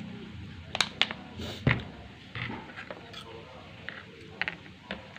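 Eating bakso: a spoon clicking against the bowl several times, sharpest in the first two seconds, with quieter mouth and eating noises between.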